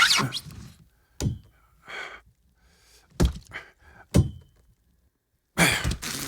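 Hollow thuds and knocks aboard a boat, four of them spaced a second or so apart, with a short pitched creak between. Near the end a sudden loud rush of noise sets in.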